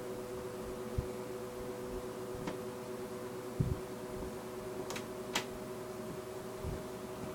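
1970s Sears Kenmore 14-inch box fan running with a steady motor hum and airflow hiss. There are a few faint clicks and a short low thump about three and a half seconds in.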